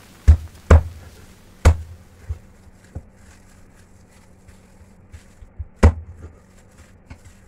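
Chinese cleaver chopping raw chicken on a thick round wooden chopping board: irregular hard knocks of the blade striking the board. There are three strong strikes in the first two seconds and one near six seconds, with lighter taps between.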